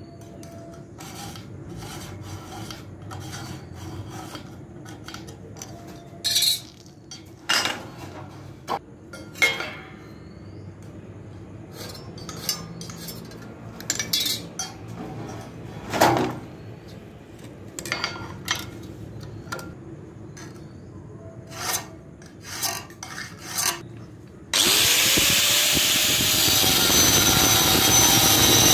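Short scrapes and knocks of metal as a steel box bar is marked along a ruler and handled. About 25 seconds in, an angle grinder with a cutting disc switches on, spins up and runs loudly.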